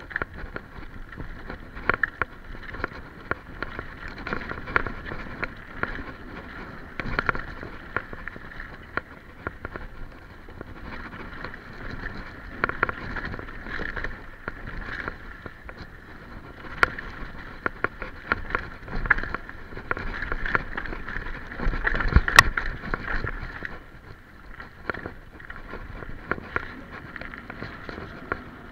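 Specialized Enduro Comp mountain bike rattling down a rough dirt singletrack: steady tyre and trail noise with frequent sharp clacks and knocks from the chain and frame over bumps. The hardest knock comes about two-thirds of the way through.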